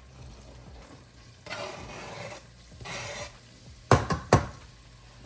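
Chopped onions being scraped into a heated skillet of butter and oil: two short bursts of scraping, then two sharp knocks against the pan about four seconds in, the loudest sounds.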